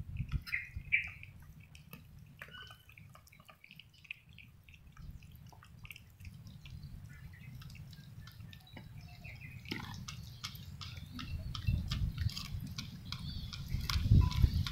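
Several cats eating wet food from bowls: a scatter of small wet chewing and lapping clicks, busier in the second half, with a few heavier knocks near the end as more food is spooned into a bowl.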